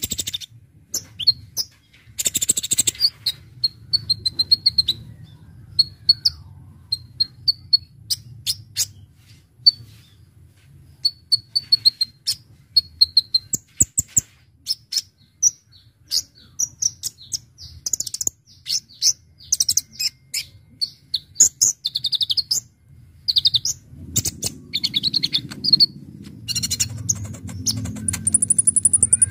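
Kolibri Ninja (Konin) sunbird singing: a fast string of sharp, high chirps and short trills in quick bursts, with brief pauses between phrases. A low hum runs underneath and grows louder near the end.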